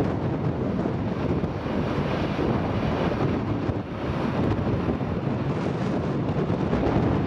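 Wind buffeting the microphone over the steady rumble of an Airbus A321's jet engines as the airliner rolls slowly along the runway.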